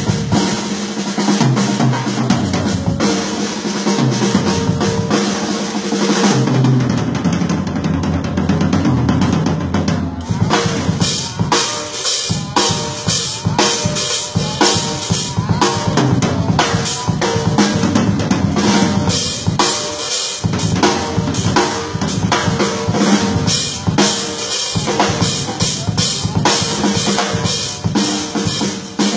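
Drum kit played in a steady groove, with kick, snare and rim strokes; the playing turns into dense, sharp fast strokes about a third of the way in.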